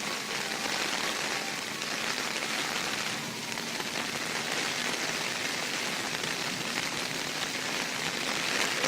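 Heavy rain pouring down in a steady, even hiss during the 2010 Nashville flood.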